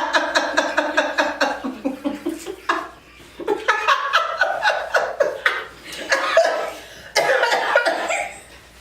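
Laughter in quick, even pulses for the first two and a half seconds, then more broken laughter mixed with coughing, set off by a crawfish that tasted nasty.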